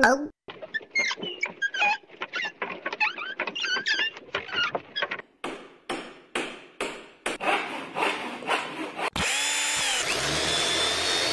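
Workshop tool sound effects: about five seconds of short, irregular squeaks and rattles, then a string of sharp knocks, then a power drill spinning up and running steadily near the end.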